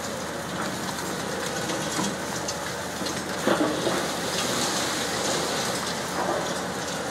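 Demolition excavator's jaws crushing a concrete building, with the crackle and clatter of falling debris over a steady hiss of water spray for dust control. A brief louder sound comes about three and a half seconds in.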